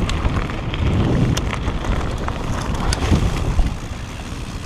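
Propain Tyee enduro mountain bike ridden along a trail, heard from an on-board GoPro: wind buffeting the microphone and tyres rumbling over the ground, with many sharp clicks and rattles. The noise eases off about four seconds in.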